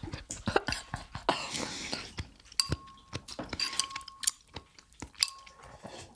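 Eating utensils clinking against a soup bowl several times, each clink leaving a short ring at the same pitch, with softer clicks in between.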